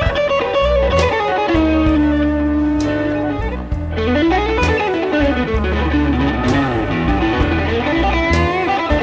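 Blues-rock backing music led by an electric guitar playing bending, sliding lead lines over a steady bass and drums.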